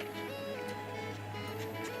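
Background instrumental music with held notes over a steady low tone, and a few light ticks.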